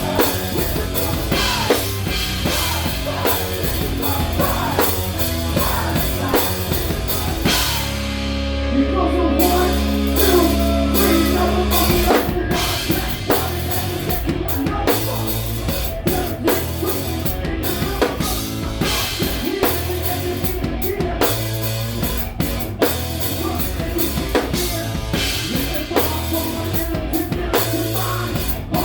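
Rock band playing live, with a hard-hitting drum kit and a heavy low-end riff. About eight seconds in, a low note is held while the cymbal and snare hits drop away, and about twelve seconds in the full drum beat crashes back in.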